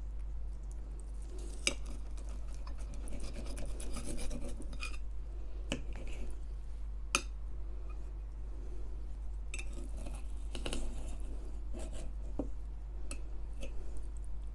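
Close-miked chewing of a soft stuffed pepper with rice and tomato sauce: wet, squelching mouth sounds with scattered sharp clicks.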